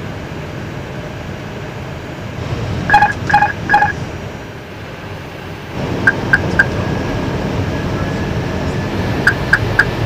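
Airbus A320 cockpit noise on approach: steady airflow noise that swells into a louder, deeper rumble about six seconds in as the landing gear extends into the airstream. Three short electronic beeps sound about three seconds in, with two more sets of three fainter beeps later.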